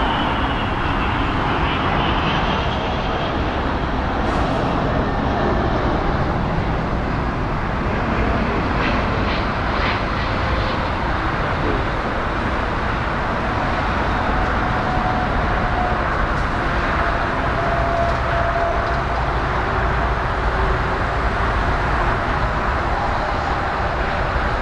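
Four-engined Airbus A380 jet engines on final approach and landing: a steady, even roar, with a faint high whine in the second half.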